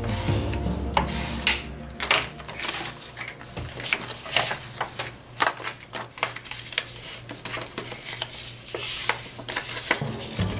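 Paper being folded and creased by hand on a cutting mat: rustling and crinkling, with many scattered light taps and clicks as the pieces are handled and pressed down.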